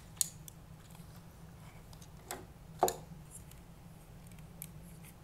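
Power Rangers Legacy Collection Dragonzord and Megazord toy parts being handled and fitted together: a handful of sharp clicks and knocks, the loudest nearly three seconds in.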